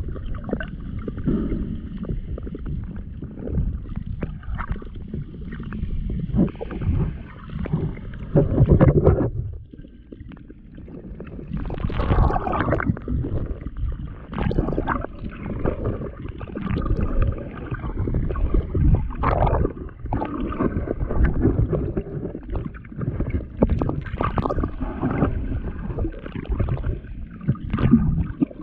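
Muffled underwater sound picked up by a camera in a waterproof housing: water sloshing and gurgling with irregular crackles and knocks, quieter for a moment about ten seconds in.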